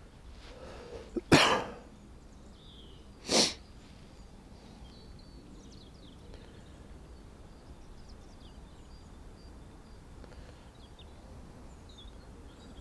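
A man sneezes twice, about two seconds apart; the first sneeze is the louder.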